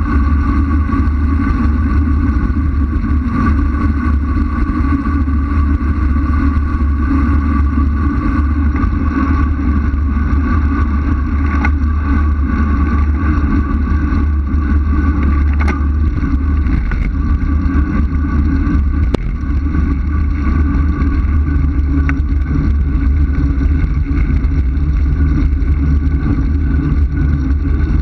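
Wind rushing over the microphone of a camera riding on a bicycle in a fast road descent: a loud, steady low rumble with a faint whistle above it and a few sharp clicks.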